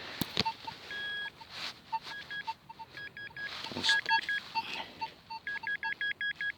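Metal detector tones responding to a buried metal target: short electronic beeps, scattered at first and coming fast and regular near the end. A couple of sharp knocks come just after the start.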